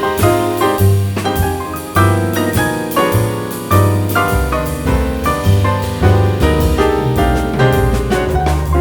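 Background music: jazz with piano, bass and drums, a steady beat.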